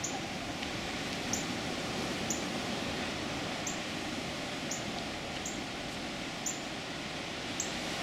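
Ocean surf breaking on jagged lava rocks, a steady wash of noise, with a high, thin chirp repeating about once a second.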